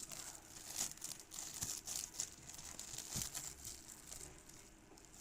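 Packaging crinkling and rustling in irregular bursts that thin out near the end.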